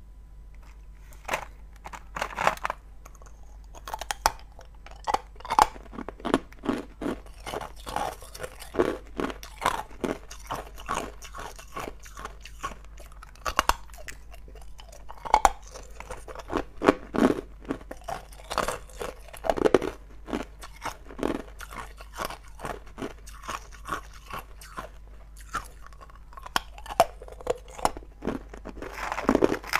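Hard ice cubes being bitten and chewed: a dense, irregular run of sharp crunching cracks as the cubes break apart between the teeth.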